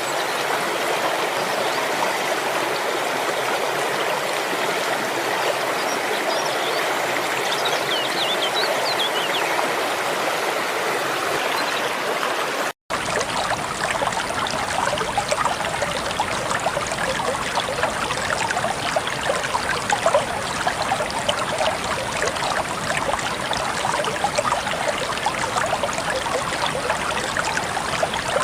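Steady rush of water flowing and splashing at a waterfall and its stream. It drops out for an instant about thirteen seconds in, then carries on with more low rumble.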